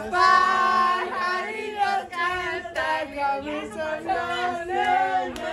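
Several voices singing together, unaccompanied, in held, wavering sung phrases.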